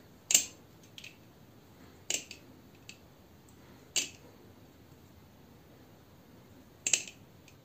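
Trainer balisong (butterfly knife) handles clacking as it is flipped around the index finger and caught. Sharp separate clacks: the loudest about half a second in, others around two and four seconds, and a double clack near the end.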